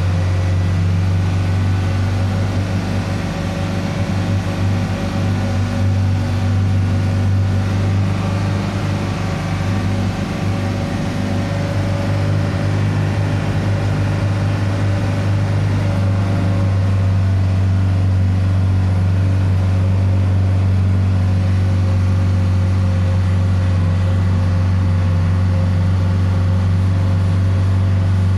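A steady, loud, low engine drone with an even hum and no change in pace.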